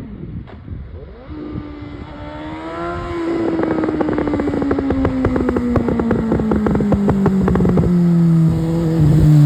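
Suzuki GSX-S 750 inline-four, on a straight-through Yoshimura SQ11 exhaust with no dB killer and no catalytic converter, approaching. It revs up briefly, then the throttle closes and its pitch slowly falls while the exhaust crackles and pops on the overrun. It grows louder throughout and is loudest near the end.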